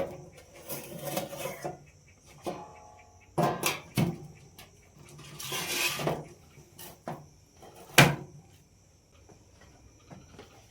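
Irregular knocks, clatters and scrapes of things being handled. A sharp knock comes at the start and a loud one about eight seconds in, with a longer scraping rustle in between. A steady high insect chirring runs behind.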